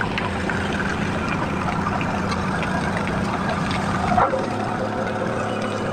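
Heavy construction machine's diesel engine running steadily, with a brief sharp sound about four seconds in.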